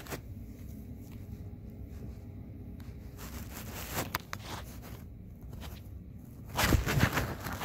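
Handling and movement noise: rustling and scraping, with a louder scuffing burst about a second before the end.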